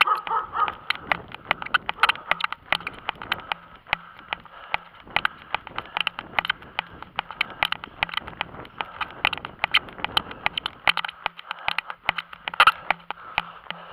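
Rapid, irregular clicking and rubbing from a body-worn camera and its microphone jostling with the wearer's movement, several knocks a second.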